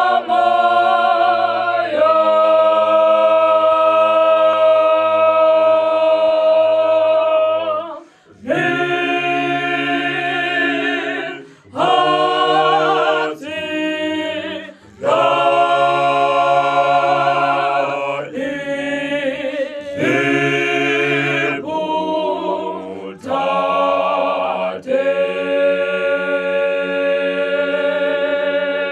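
Small gospel vocal group singing a cappella in harmony, holding long chords in phrases with short breaks between them.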